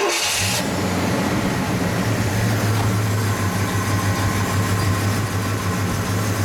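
1970 Pontiac Grand Prix Model J's V8 engine firing up with a brief rush of noise at the very start, then idling steadily.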